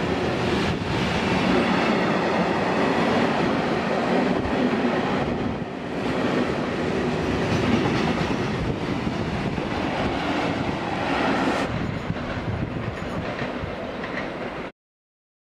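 Loaded container freight wagons rolling past close by, a steady noise of steel wheels on the rails. The sound becomes thinner about twelve seconds in and drops out suddenly near the end.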